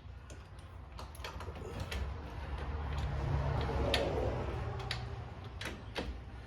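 Metal clicks and knocks of a socket on a long string of extensions working at a rusted ball-joint nut, with a mechanical whir from a Ryobi ONE+ cordless tool that builds to a peak about four seconds in and falls away.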